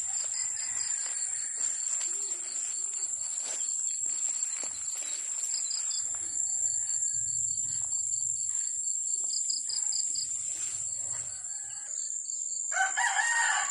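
Outdoor insect chorus: a steady high-pitched drone with a rapid pulsing chirp over it. Near the end, a rooster starts crowing loudly.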